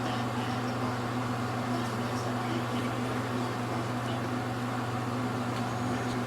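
Steady low mechanical hum, like a running fan or appliance motor, with a few faint soft ticks or rustles over it.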